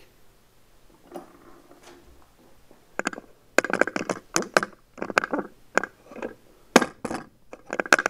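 Handling noise close to the microphone: after about three seconds of quiet, a rapid clatter of sharp clicks and knocks.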